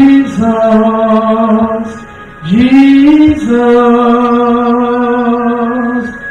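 A woman singing slow, drawn-out chant-like notes into a handheld microphone: two phrases, each sliding up into a long held note, the second starting about two and a half seconds in.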